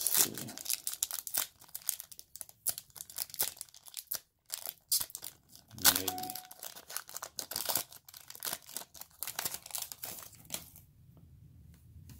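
A glossy trading-card pack wrapper being torn open and crinkled by hand: a dense run of rips and crackles that stops about eleven seconds in.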